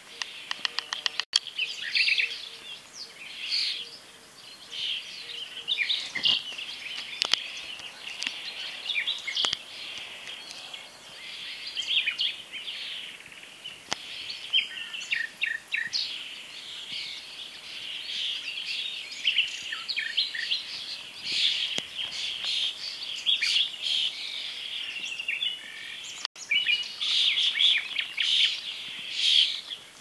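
A chorus of many small birds chirping and singing at once, with dense, overlapping high-pitched calls and no pause.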